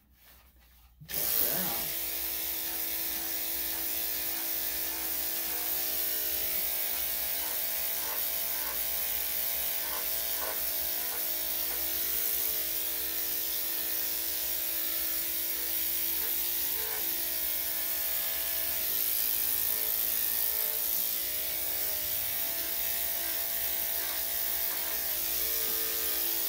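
Electric dog grooming clippers switched on about a second in, then running steadily with an even motor hum and buzz.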